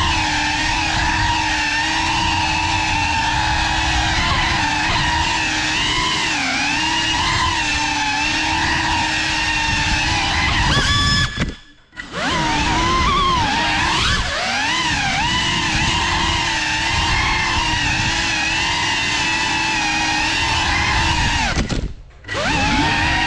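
Small FPV drone's brushless motors and propellers whining, the pitch rising and falling with the throttle. The sound dies away almost completely twice, about halfway through and near the end, and spools back up each time.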